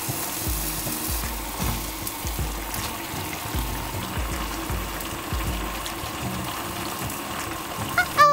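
Pig trotters sizzling in a large wok with oil and aromatics, a steady hiss over background music with a regular beat. A brief bright musical flourish comes near the end.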